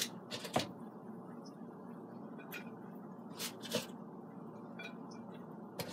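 Short sharp clicks and taps as cooked chicken wings are lifted out of an air fryer basket and set on a plate, about seven over a few seconds, over a steady low hum.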